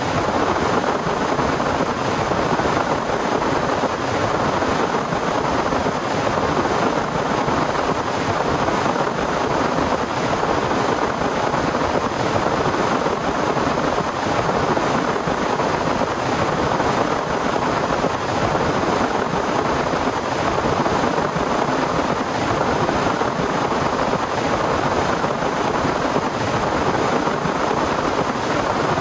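Heavy rain falling steadily, a dense even hiss without let-up.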